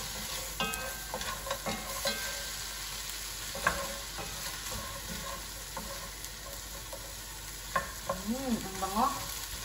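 Lobster pieces in the shell sizzling in hot oil in a nonstick frying pan while a wooden spatula stirs them, with scattered clicks and knocks of the spatula and shells against the pan.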